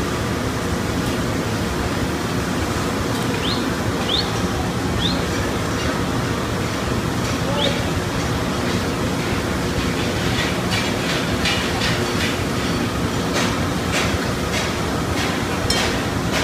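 Glassblowing workshop noise: a steady loud rushing din with voices under it. A few short high rising chirps come about four seconds in, and a run of sharp taps follows in the second half.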